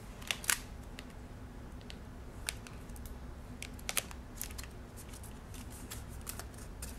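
Stiff sticker sheets of a thick sticker book being flipped by hand, giving an irregular scatter of sharp paper ticks and snaps over a faint steady room hum.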